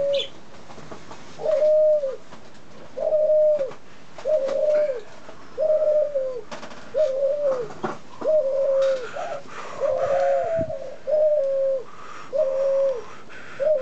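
Barbary doves cooing: a short, dipping coo repeated about once a second, a dozen times over. A few soft knocks and rustles of handling come in the middle.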